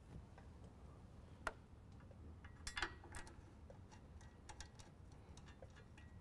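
Faint metal clicks and ticks as factory bolts are hand-started through a bumper bracket into a pickup's frame horn. The sharpest click comes about a second and a half in, with a small cluster near the middle and fainter ticks after that.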